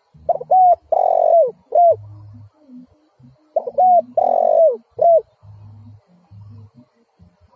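Spotted dove cooing: two phrases about three seconds apart, each a couple of short coos, one longer rolling coo and a short final note. A faint low hum pulses under and between the calls.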